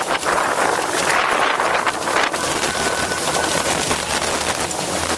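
Wind rushing over the microphone and water spray hissing off the hulls of a sailing catamaran sailing at about 25 mph. It is a steady, loud rush, peppered with small crackles of spray.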